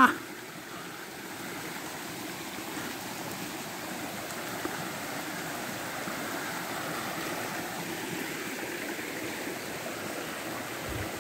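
A small woodland creek swollen by heavy rain, running fast with a steady rush of water that grows a little louder over the first few seconds.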